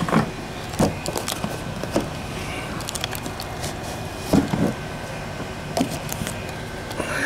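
Black plastic trays of a stacked worm composting bin knocking and scraping as they are lifted apart by hand, with a handful of separate knocks.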